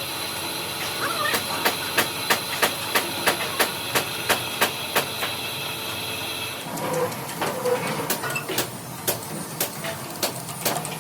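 Hammer blows on steel, a steady run of sharp strikes about three a second, over a steady high-pitched whine and hiss. The whine stops about two-thirds of the way in, and scattered, irregular knocks follow.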